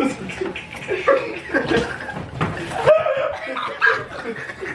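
Men laughing and chuckling, with bits of indistinct talk mixed in.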